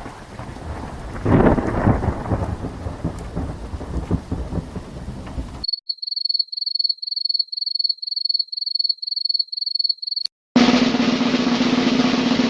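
A run of separate stock sound effects. First comes about five and a half seconds of rumbling noise that swells after about a second. It cuts off, and a rapid series of short high beeps follows, about fourteen in four seconds. A click then leads into a dense noisy sound with a steady low hum.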